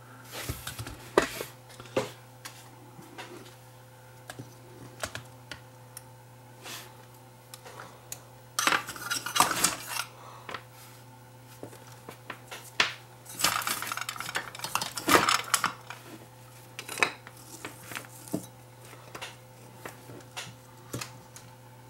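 Workbench handling sounds: small clicks, taps and light metallic clatter as a camcorder viewfinder circuit board and a soldering iron are picked up and moved, with two longer scratchy, rustling stretches about nine and fourteen seconds in.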